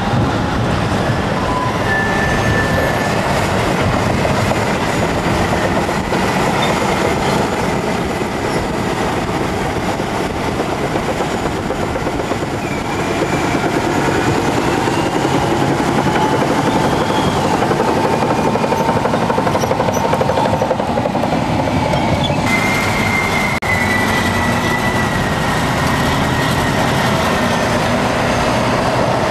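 Caterpillar 631E wheel tractor-scrapers loading: a heavy diesel engine works hard under load while the bowl's cutting edge scrapes through soil and rock. Loud and steady throughout, with thin squealing tones that come and go over the rumble.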